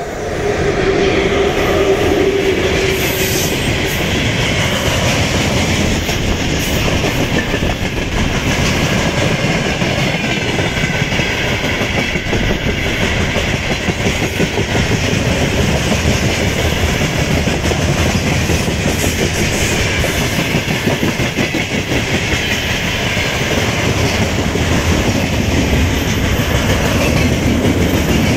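Long freight train of tank cars, gondolas and flatcars rolling past close by: a steady rumble and rattle of steel wheels on the rails, with repeated clicks as the wheelsets cross rail joints.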